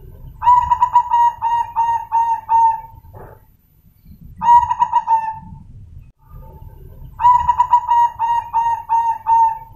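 Zebra dove (perkutut) singing its cooing song: a quick run of about six short coos, then one longer coo, then the run again. The bird is a crossbred perkutut, the offspring of a colour (white or silver) perkutut that came out in ordinary colouring.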